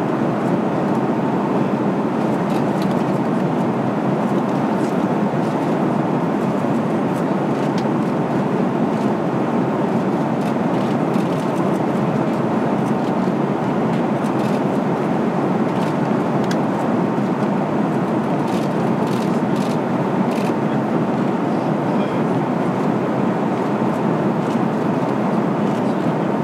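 Steady in-flight cabin noise of an Airbus KC-30A tanker: an even drone of airflow and engine noise heard inside the cabin.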